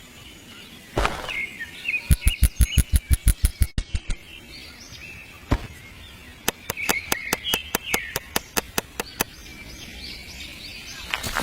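Small birds chirping in the background, with two runs of sharp, even clicks at about six a second and a few single knocks.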